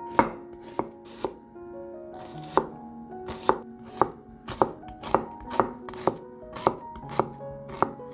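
Knife chopping vegetables on a cutting board: about a dozen sharp knocks at an uneven pace, one or two a second, over soft background music.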